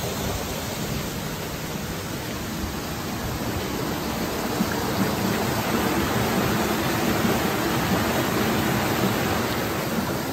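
Steady outdoor rushing noise, swelling a little after a few seconds and easing near the end.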